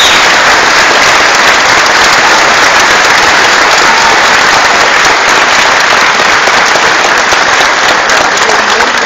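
Audience applauding, a dense steady clapping that thins a little near the end.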